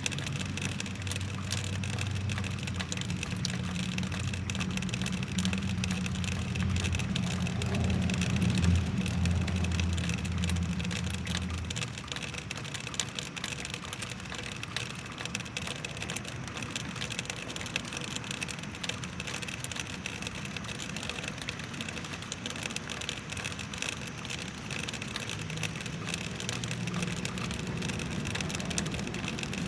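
Rain running off a roof, making a steady clacking patter of many small drips and ticks. Under it is a low rumble that fades about twelve seconds in and returns faintly near the end.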